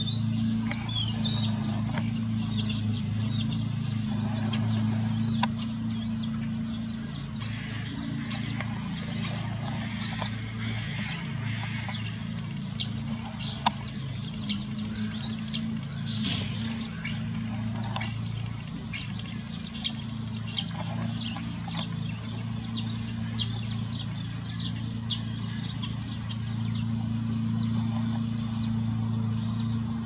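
Common starling singing: a varied run of short whistles, clicks and chirps, with a fast string of high notes about two-thirds of the way in that is the loudest part. A steady low hum runs underneath.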